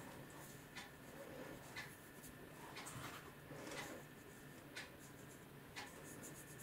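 Faint scratching and rustling with a few light clicks, from hands working with a seed-sowing container.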